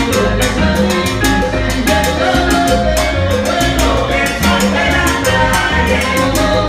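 Live salsa band playing, with upright bass, congas and timbales keeping a steady, even beat under the melody.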